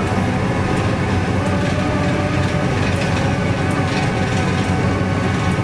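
SANY rotary drilling rig's diesel engine and hydraulics running steadily: a low drone with a constant whine over it and a few faint metallic clicks.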